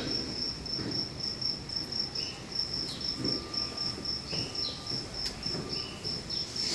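Insect chirping: one steady high-pitched note pulsed evenly several times a second, over faint low background noise, with a few fainter short chirps mixed in.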